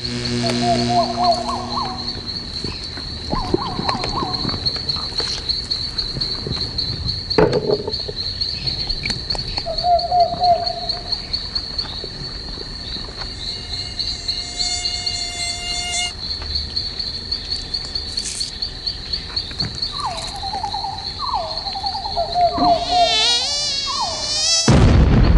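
Night insect chorus: crickets chirping in a steady high pulsing trill, with short lower trilled calls now and then. Near the end an insect's whine wavers up and down in pitch, and then a loud sudden noise breaks in just before the end.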